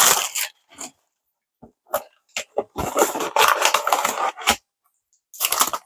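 Parcel packaging being handled and opened: scattered clicks and taps, then a stretch of crackling, rustling paper or plastic in the middle and another short rustle near the end.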